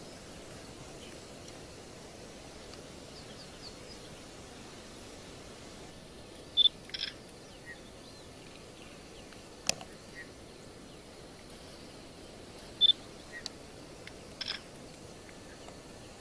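Quiet outdoor ambience, a steady faint hiss, broken by a few short high chirps: two loud ones about six seconds apart, each followed by fainter ones, and a single sharp click near the middle.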